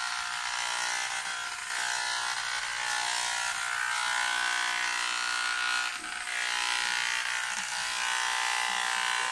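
Electric hair clipper buzzing steadily as it cuts a boy's hair, with a brief dip about six seconds in.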